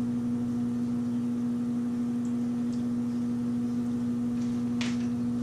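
Kitchen range hood exhaust fan running with a steady electric hum.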